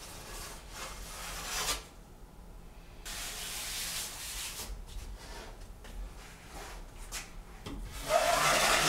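Drywall taping knife scraping over joint compound on a paper-faced composite corner bead and drywall, pressing the corner tight and wiping off excess mud: a series of scraping strokes with a brief pause about two seconds in and the loudest stroke near the end.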